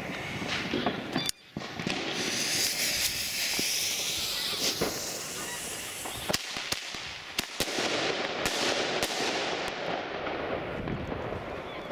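Katan ThunderKing firework going off: a hissing spray of sparks, then a string of sharp cracks and bangs from about six seconds in.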